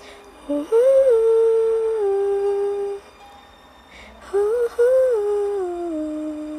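A woman humming a slow tune without words in two phrases, each of long held notes that step up and then down.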